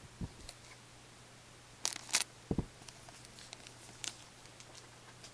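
Trading cards being handled: a couple of sharp clicks and flicks of card stock about two seconds in, a dull thump just after, and a few light ticks, over a faint steady hum.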